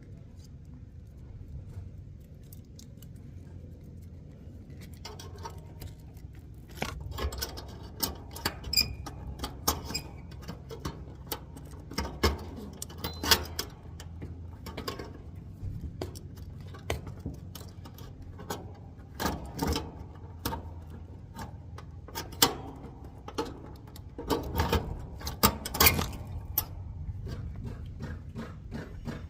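Irregular clicks, clinks and knocks of hand tools and metal parts being handled at close range, over a steady low hum. The clicking starts about five seconds in and is loudest in clusters around the middle and near the end.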